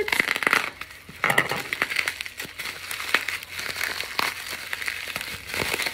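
Packaging crinkling and rustling in irregular crackles as items are dug out of a shipping box and handled.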